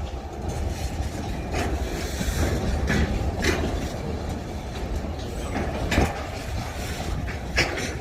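Freight train cars rolling past: a steady low rumble of wheels on rail, with sharp clacks at irregular intervals as the wheels cross rail joints.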